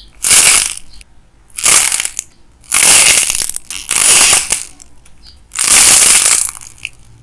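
Hardened light modelling clay crackling and crunching as it is squeezed in the hands, its crust breaking up. There are four squeezes, and the third one lasts longest.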